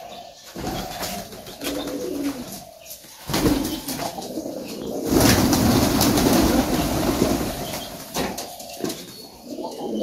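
Domestic pigeons cooing while they feed, with scattered light taps. From about three to eight seconds in, a loud rushing noise covers the cooing.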